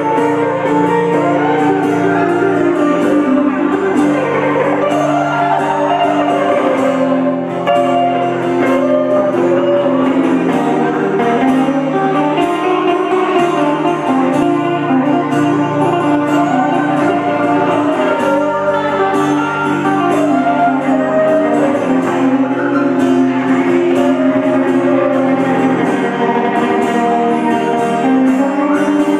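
Amplified electric guitar playing an instrumental: a sustained lead melody with bent notes over a steady, held chordal accompaniment.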